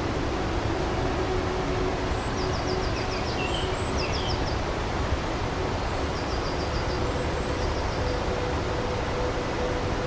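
Nature ambience: a steady rushing hiss with a bird giving short, quick series of high chirps several times, and a faint held low tone underneath.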